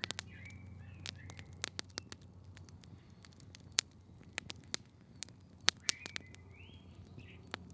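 Quiet forest ambience: scattered, irregular sharp clicks and crackles over a low steady background, with faint high-pitched chirps just after the start and again about six seconds in.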